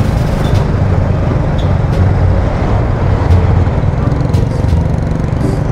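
Steady low rumble of a Honda Click scooter being ridden through traffic: engine running with wind and road noise on the bike-mounted microphone.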